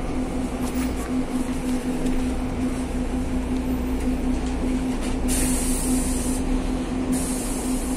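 City bus engine running steadily, heard from inside the cabin, with a constant low drone and a steady hum. Two bursts of high hiss, each about a second long, come in the second half.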